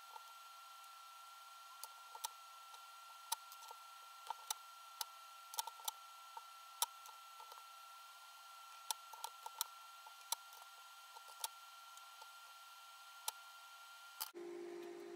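Faint, irregular sharp clicks and ticks of small metal parts and wire being handled on a concrete floor, over a steady high-pitched tone. About a second before the end it cuts suddenly to a lower steady hum.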